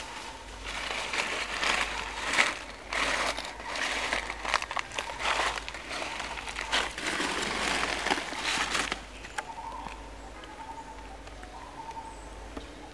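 Crackling, rustling noise made of many small clicks, continuing for several seconds and stopping about nine seconds in.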